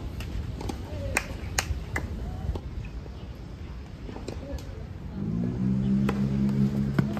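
Sharp pops of tennis balls being struck by rackets and bouncing on a clay court, several in the first few seconds. About five seconds in, a steady low hum with several even tones starts up and holds.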